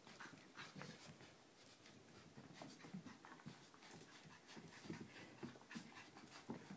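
Faint sounds of cocker spaniel puppies playing with a plush toy: soft scuffling and many scattered small clicks, with the puppies' own small noises.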